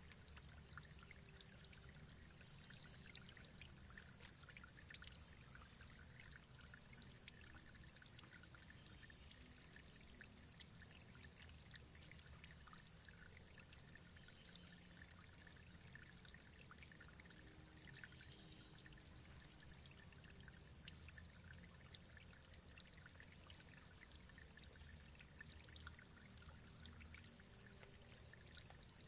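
Faint running water flowing steadily, with many small splashes and drips.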